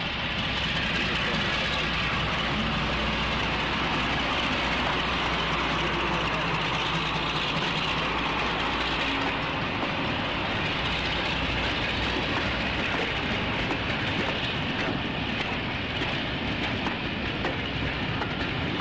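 Class 52 'Western' diesel-hydraulic locomotive drawing a train past at close range: a steady low engine drone for roughly the first half, then the coaches rolling by on the rails.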